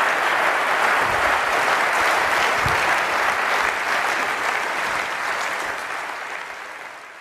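Audience applauding steadily, fading away over the last couple of seconds.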